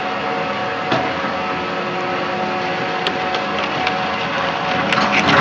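Rotary shredder running steadily as its cutter rotor chews interior PET fibre trim scrap, with a few sharp ticks from the cutters. It grows louder and coarser near the end as more scrap is caught.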